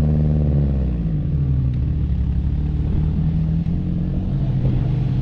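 4x4 off-road vehicle's engine, revs falling back about a second in, then running on steadily with small rises and dips in pitch.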